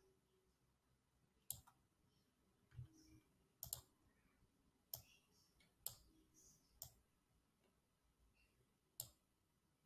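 Computer mouse clicking about six times at irregular intervals, faint, in near silence.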